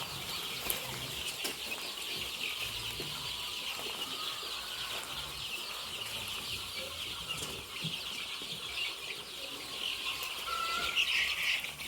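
A flock of young chickens peeping and cheeping together: a steady chorus of many overlapping high chirps.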